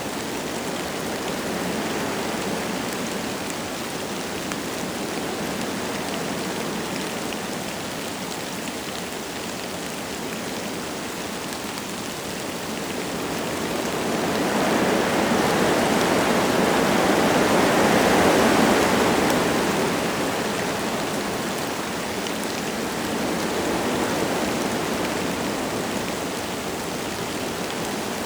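Wind blowing through forest trees with light rain falling. A gust builds about halfway through, peaks, and dies back down.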